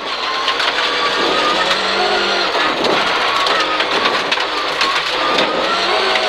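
Rear-wheel-drive Peugeot 306 rally car's engine at high revs, heard from inside the cabin under hard acceleration, over a steady rush of road noise. The pitch breaks off briefly about halfway through, then climbs again.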